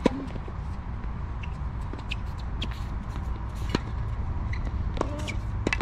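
Tennis racket strings striking the ball during a rally: a sharp pop right at the start as the near player hits a forehand, then more hits a little under four seconds in, about five seconds in and near the end, over a steady low background rumble.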